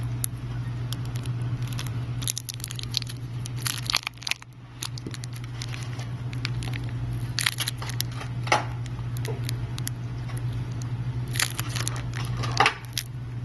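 Scattered small crackles and clicks of hands working at a phone's screen edge while excess liquid adhesive is cleaned off, over a steady low hum.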